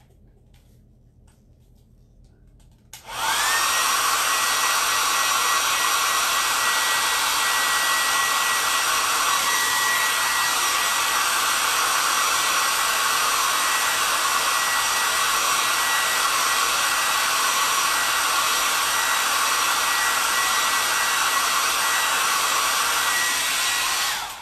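Handheld hair dryer switched on about three seconds in, quickly winding up to a steady blowing rush with a thin high whine, drying freshly applied chalk paste; it shuts off near the end.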